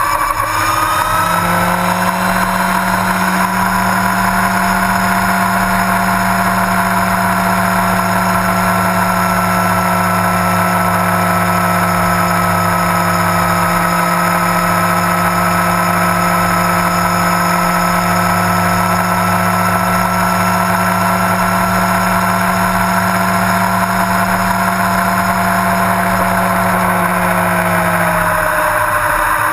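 Yamaha R1 sport bike's inline-four engine rising in revs over the first second or so, then running steadily at speed, with a broad rush of wind and road noise over it; the revs drop near the end.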